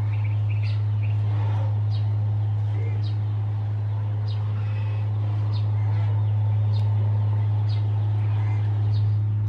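A bird chirping repeatedly, short falling calls about once a second, over a steady loud low hum.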